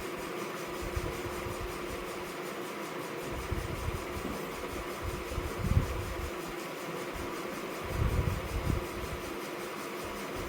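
Steady hum of an electric fan or air conditioner running, with a few soft low thumps about four, six and eight seconds in.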